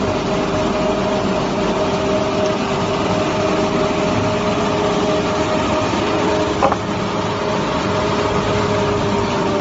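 Reignmac RMM523 four-side moulder running, its spinning cutter heads giving a steady, loud mechanical hum with two held tones. A single sharp click sounds about two thirds of the way through.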